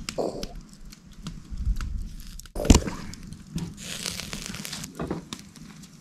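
Rice balls being set down on a wire grill rack over hot charcoal: scattered light clicks and taps of the wire rack, with one sharp knock about halfway through and a short hiss a second or so after it.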